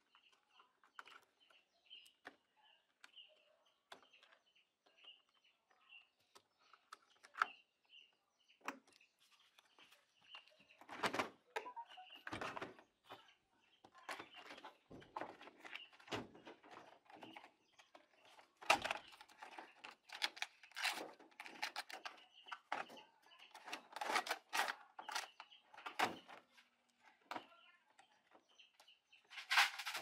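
Plastic clicks, knocks and rattles as the top panel and lid of a Toshiba top-loading washing machine are worked loose and lifted off, busiest in the second half. A bird chirps over and over, a short high note nearly twice a second, through the first several seconds.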